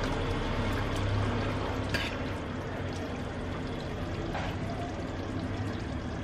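Curry being scooped from a metal pot with a serving spoon, with a light clink of spoon on metal about two seconds in and again past four seconds, over a steady hiss and low hum.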